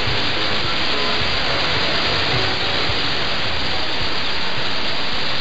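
Steady hiss of a weak, distant AM mediumwave broadcast on 1467 kHz heard on a radio receiver, the programme almost buried in noise with only faint traces of sound showing through. The hiss is dull, with no high treble.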